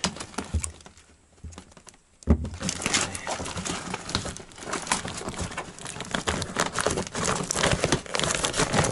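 Paper padded mailing bag being torn open and crumpled by hand, a dense crackly rustling. After a short lull near the start there is a sharp thump, then the rustling runs on.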